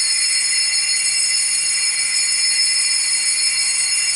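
Small altar bells rung in a sustained peal of several high, clear tones, starting suddenly and beginning to die away near the end: the sanctus bells rung at the elevation during the consecration of the mass.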